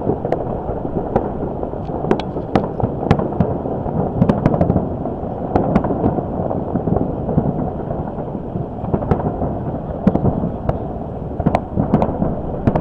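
Aerial fireworks going off: many sharp cracks and pops over a continuous low rumble of booms, with cold wind blowing on the microphone.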